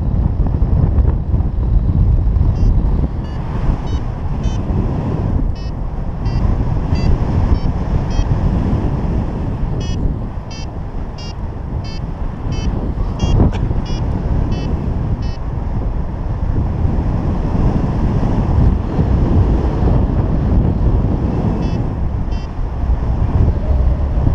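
Airflow buffeting an action camera's microphone on a paraglider in flight, a loud steady rush. Over it a paragliding variometer beeps in short high pips about twice a second through the first half and again briefly near the end, its signal for climbing in lift.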